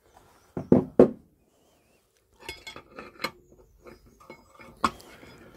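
Steel selector rods and forks of a Land Rover Series gearbox clinking and knocking against the cast casing as they are worked loose and lifted out. Two sharp knocks about a second in, then a run of lighter clinks, with one louder knock near the end.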